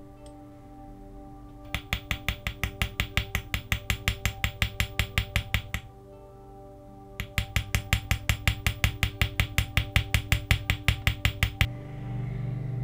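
Small hammer tapping quickly and evenly on metal, in two runs of about four seconds each with a short pause between.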